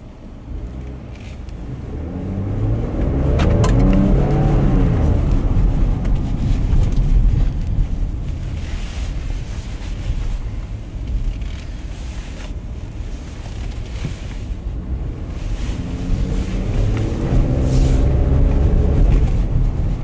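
Ford F-150's twin-turbo EcoBoost V6 heard from inside the cab while driving, pulling up through the revs under acceleration in the first few seconds, easing off, and accelerating again near the end.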